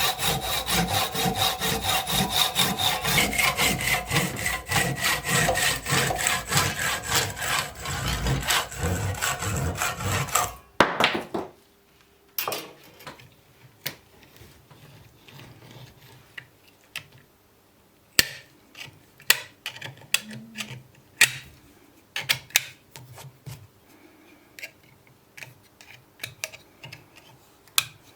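Hand saw cutting through wood in quick, even back-and-forth strokes, with a faint ringing from the blade. The sawing stops abruptly about eleven seconds in, followed by scattered light clicks and knocks of tools being handled.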